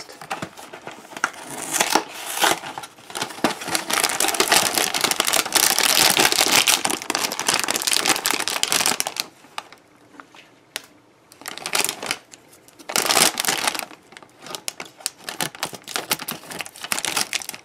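Cereal box and its plastic inner bag being handled and opened: a dense crinkling and crackling for several seconds, then a quieter stretch and a short loud rustle. Near the end comes a run of sharp clicks as scissors cut the plastic bag open.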